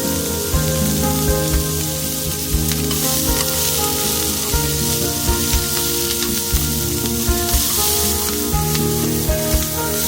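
Food sizzling as it fries in a pan, a steady hiss, over background music with held notes.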